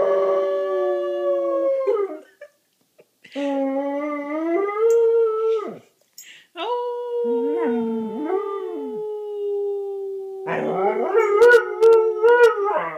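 An eight-month-old German Shorthaired Pointer howling along with a person's howl: long drawn-out howls, often two voices at once, broken by two short pauses. Near the end the howls turn wavering and broken up.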